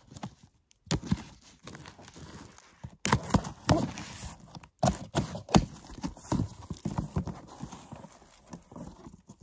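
Knife slicing through packing tape and cardboard, with the flaps of a cardboard box being pulled open: irregular scraping, knocks and rustling.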